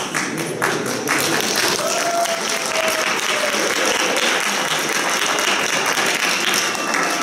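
Audience applauding, a dense, steady clapping throughout.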